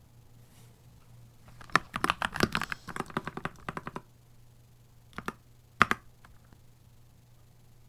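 Keychron C2 Pro 8K mechanical keyboard being typed on: a quick run of keystrokes lasting about two seconds, then two separate key presses, with quiet gaps before and after.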